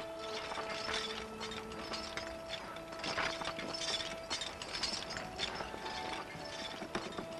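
Iron ankle-shackle chain clinking and rattling in repeated irregular strokes as a barefoot prisoner walks.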